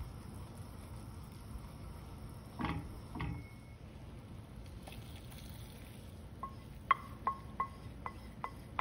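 A wooden spoon knocking and scraping against a stainless steel pan and bowl while hot caramel is poured out: two soft thuds about three seconds in, then from about two-thirds of the way through a quick run of about eight sharp taps, each with a brief metallic ring.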